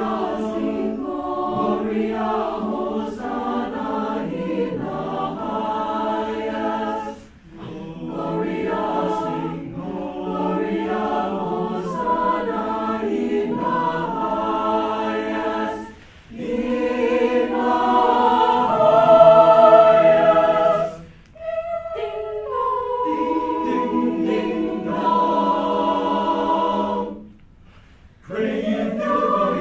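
High school choir singing, in phrases separated by short breaks.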